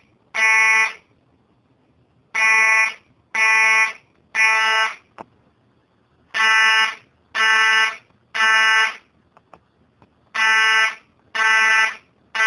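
Fire alarm sounder giving a buzzy, many-harmonic tone in the temporal-three pattern: three beeps of about half a second, a pause of about a second and a half, then again, repeating. This is the standard fire-evacuation signal. A brief click falls in one of the pauses.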